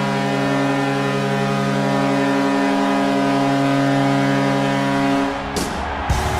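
Vancouver Canucks goal horn blowing one long, steady, deep chord, which cuts off about five and a half seconds in as the goal song's music starts.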